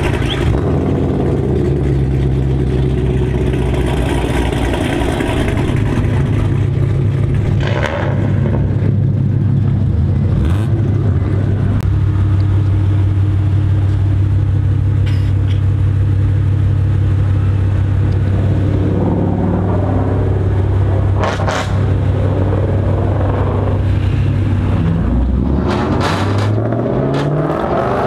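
A car engine running at a steady low idle, then revving up with a rising pitch near the end, with a few brief clicks over it.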